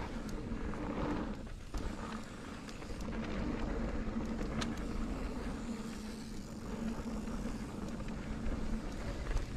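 Mountain bike rolling along a trail: steady tyre noise with scattered sharp clicks and rattles from the bike, and wind buffeting the camera's microphone.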